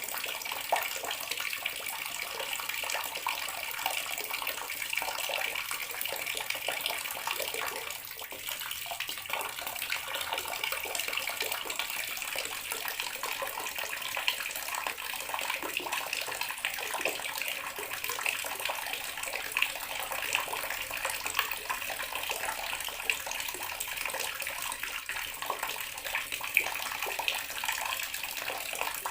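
Water running steadily from a tap into a bathroom sink, a continuous splashing stream with small irregular splashes and a slight dip in flow about eight seconds in.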